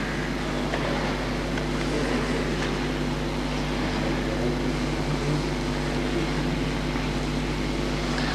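Steady low electrical hum with hiss from an old recording's microphone and sound-system chain, with no voice yet.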